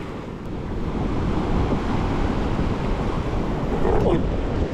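Wind buffeting the microphone over the steady wash of surf on the sea, with a brief short sound about four seconds in.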